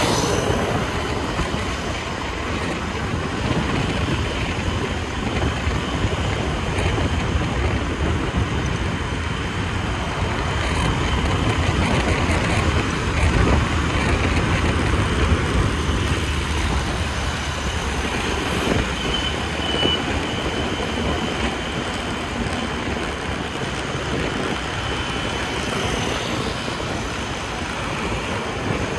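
Riding a scooter through city traffic: a steady rush of engine, tyre and wind noise, with passing vehicles. It grows louder for a few seconds around the middle.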